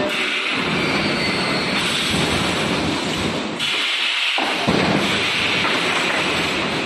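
Steady noise of factory machinery running, changing abruptly about two and about three and a half seconds in, as if between different shots of the machine.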